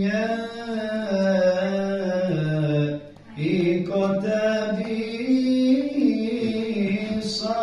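A man's solo voice chanting an Islamic religious recitation in a melismatic style, with long held notes that bend up and down. There is a short break for breath about three seconds in.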